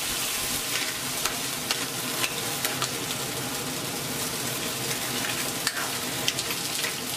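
Mussels in their shells sizzling in hot liquid in a carbon-steel wok, stirred with a metal ladle that clicks and scrapes against the shells and the pan several times.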